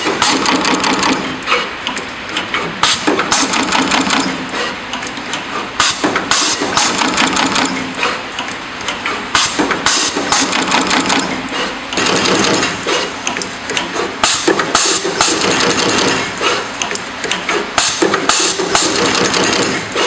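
Automatic wire stripping, twisting and soldering machine running, its moving heads and clamps clacking in quick, irregular strokes over a steady mechanical clatter.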